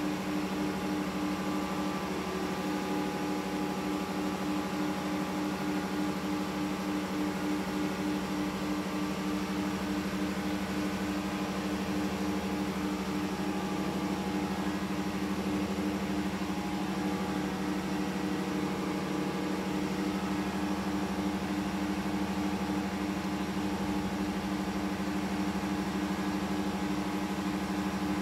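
Steady drone of running engine-room machinery: a constant low hum with a fast, even pulse in it.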